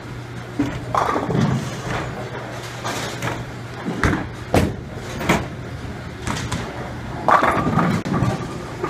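Bowling alley noise: sharp knocks and clatter of bowling balls and pins, loudest about four to five seconds in as a ball is delivered, over a steady low hum.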